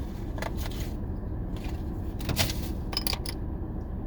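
Plastic blister packaging and cards being handled: a few short clicks and scrapes, over the steady low rumble of a car interior.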